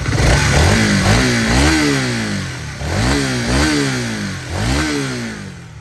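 Honda CBR150's single-cylinder four-stroke engine blipped four times from idle, the pitch rising and falling with each rev, then settling back toward idle near the end. The engine has a newly fitted timing chain, replacing a stretched one that had made the bike sound as if something inside had broken.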